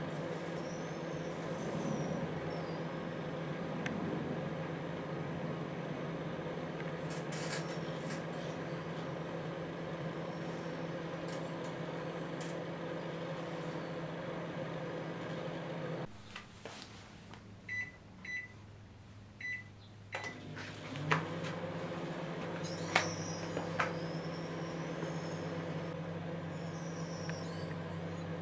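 Microwave oven running with light bulbs inside: a steady electrical hum with a few sharp clicks. Midway the hum stops for about five seconds, a few short high beeps sound, and then it starts again.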